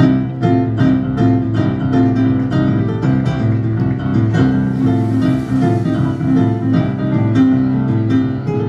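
Instrumental music with plucked strings and piano, coming in loud at the start.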